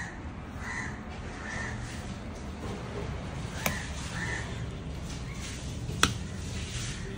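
A bird calling again and again in short harsh calls, in groups of two or three, over a steady low rumble. Two sharp knocks cut through, the second about six seconds in and the loudest sound.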